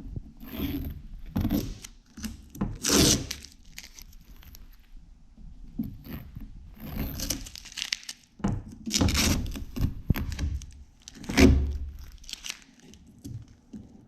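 Tape being peeled off a truck body in a string of short tearing, crinkling pulls, with knocks of handling and a heavy thunk near the end.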